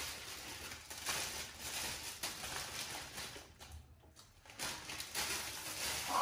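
Close-up eating and drinking noises: crisp rolled wafers being bitten and crunched, and juice sipped through a straw, in uneven spells with a short lull in the middle.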